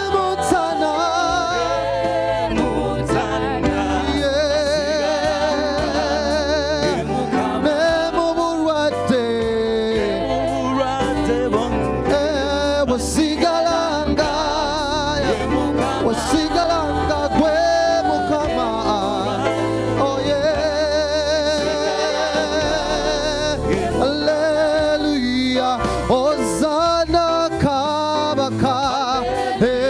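Gospel worship music: voices singing with wide vibrato over instrumental backing and regular percussive hits.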